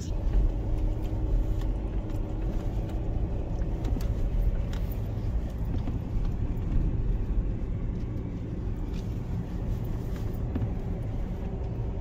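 A four-wheel-drive car driving along a sandy bush track, heard from inside the cabin: a steady low rumble of engine and tyres with faint scattered knocks and rattles. A faint steady hum stops about four seconds in.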